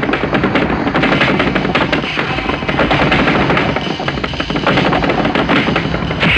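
A rapid, unbroken volley of sharp impacts, many a second, in a martial-arts fight sound effect.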